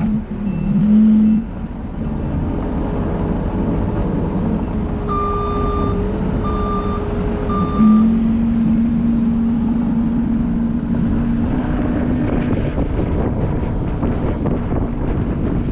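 Dump truck engine running steadily, with a backup alarm beeping three times about a second apart near the middle.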